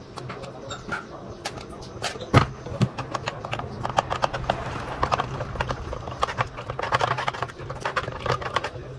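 Irregular light clicks and knocks, with faint voices in the background.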